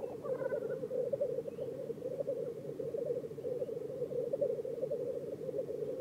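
Male black grouse lekking: a continuous bubbling, cooing chorus from the displaying cocks, their spring courtship song. A few higher calls come in briefly right at the start.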